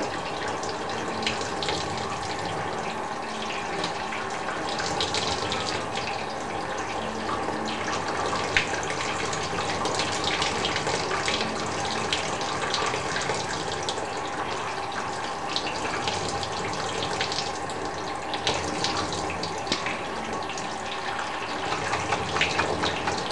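Steady shower of water running from a small handheld spray head and splashing onto a plastic cage tray, with faint ticks of splashing as a budgie bathes in it.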